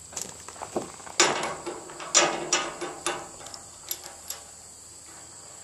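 Metal clinks and scrapes of a 5/8-inch A325 structural bolt and nut being handled and fitted into a Skidmore bolt tension calibrator: a string of sharp taps, busiest in the first three seconds and dying away after about four.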